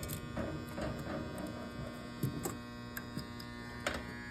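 Steady electrical hum made of several held tones, with a few light clicks and knocks of handling; the loudest knock comes near the end.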